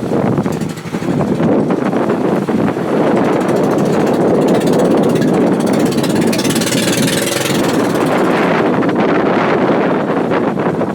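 Loud, steady rushing noise of wind buffeting the microphone over moving water.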